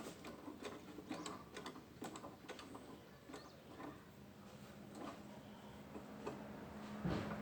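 Faint, irregular light clicks and clinks of hand tools and metal parts being handled during a car transmission teardown. A steady low hum comes in near the end.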